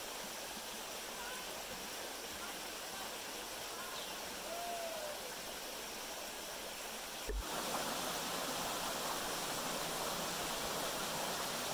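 Shallow rocky mountain creek running over stones: a steady rush of water, which gets louder about seven seconds in.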